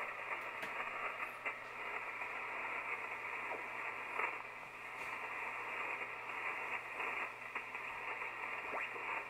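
Empty-channel receiver static from an unused ham-radio net frequency, played through a homebrew squawk box: a 900 MHz wireless-headphone receiver driving an LM380 amplifier and an old boombox speaker. It is a steady hiss with a few faint crackles and a low hum underneath, with no station transmitting.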